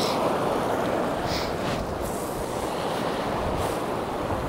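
Sea waves washing onto a rocky shore, a steady rush of surf, with wind buffeting the microphone.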